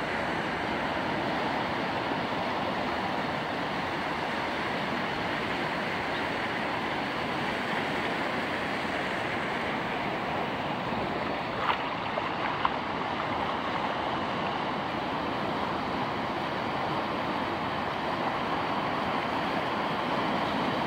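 Ocean surf breaking and washing up a flat sand beach, a steady rushing, with two brief faint sharp sounds about halfway through.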